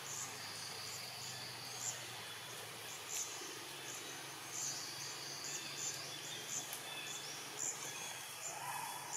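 Outdoor ambience: short high chirps repeating irregularly, several times a second, over a steady hiss.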